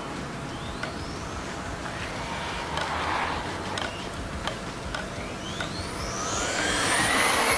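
Electric motor of an HSP 1/10 short-course RC truck whining at full throttle on a 3S lipo, the pitch rising steeply as it speeds up; a short rising whine about a second in, then a longer, louder climb near the end, with scattered light clicks.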